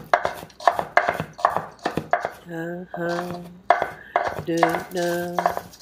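Chef's knife chopping fast on a wooden cutting board, the blade striking the board several times a second. In the second half a voice sings held "da" notes over the chopping.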